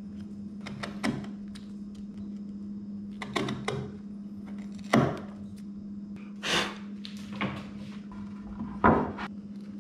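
Bench chisel pushed by hand through softwood long grain, a few spread-out short cutting scrapes and chip snaps, the sharpest knock about five seconds in. A steady low hum runs underneath.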